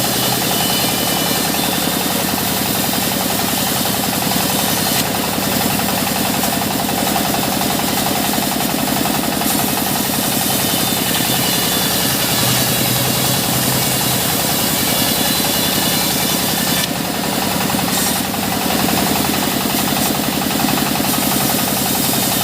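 Engine-driven sawmill machinery running steadily, with a fast, even engine beat throughout.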